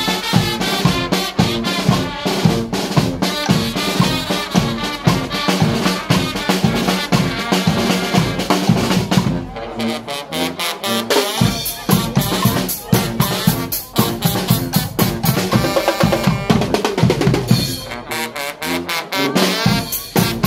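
Guggenmusik band playing live: snare drum, bass drums and cymbal beat a fast, dense rhythm under trumpets and trombones. The low drum strokes drop out briefly about ten seconds in and again near the end, leaving the brass more exposed.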